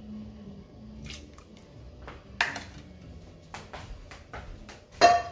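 Metal ladle scraping and tapping a frying pan as sautéed vegetables and spices are emptied into a pot of soup: a string of separate clinks and knocks, then a louder ringing metal clank near the end.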